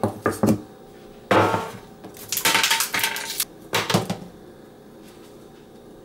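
Ice cubes knocked out of an ice cube tray clattering onto a metal baking tray. It comes in several bursts of knocking and rattling, the busiest and longest about two to three and a half seconds in.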